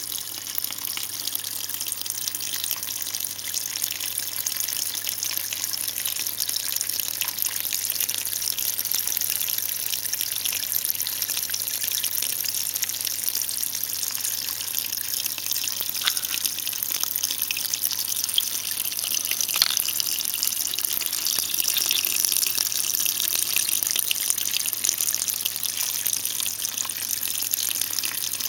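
Small vivarium waterfall: a thin stream of water falling and splashing into a shallow pool, a steady trickle.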